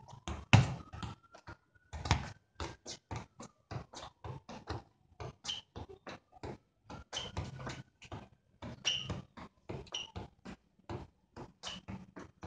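A football being juggled: a quick, irregular run of short thuds, several a second, as the ball strikes foot, thigh and head, the loudest touches about half a second and two seconds in.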